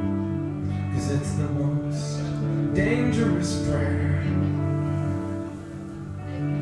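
Live looped electric guitar music: sustained chords layered and repeating, with short bursts of hiss over them in the first half.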